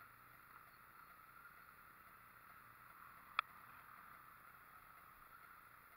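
Near silence: a faint steady hiss, broken once a little past halfway by a single sharp click.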